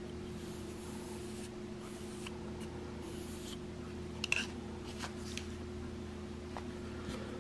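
Felt-tip marker drawn along the steel edge of a broadhead blade in short, faint scratchy strokes, blackening the edge to show where the sharpening plate cuts. A steady low hum runs underneath, and there is a small click about four seconds in.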